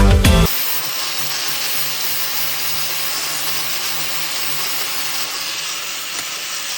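Grinder with a sanding wheel running steadily against a steel bolt, grinding down its stripped head so it fits inside a hex nut.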